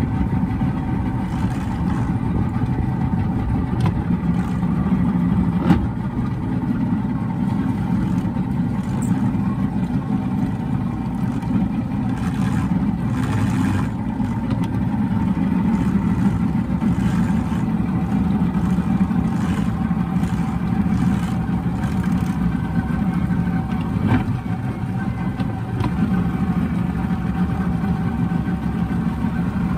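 Boston Whaler Outrage's outboard motor running at a steady speed while the boat is underway.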